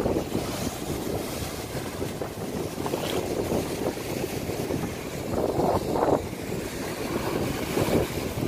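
Ocean surf breaking and washing over a rocky reef flat, mixed with wind buffeting the microphone. The rushing noise swells louder a couple of times, about two-thirds of the way through and again near the end.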